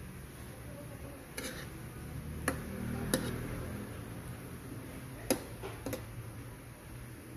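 Metal spatula clicking and scraping against a wok as pork and potato curry is stirred, with several sharp clicks spread through, over a low steady hum.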